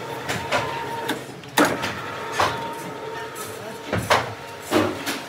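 Sharp metallic clanks of metal parts knocking together, about seven at irregular intervals, over a steady machine hum.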